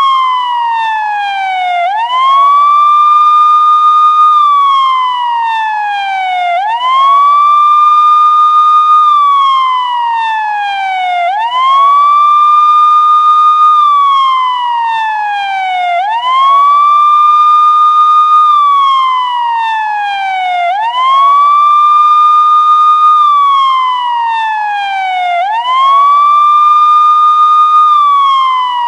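Police siren on a slow wail: each cycle rises quickly, holds its high pitch for about two seconds, then slides steadily down, repeating about every five seconds.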